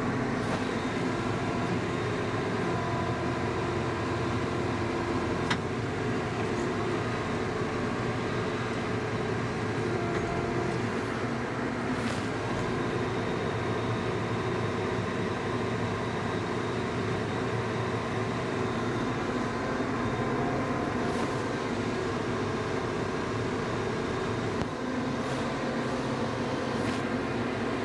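John Deere 5075E tractor's diesel engine running steadily under load as it drags a box blade up a slick, muddy bank, with a faint click or two.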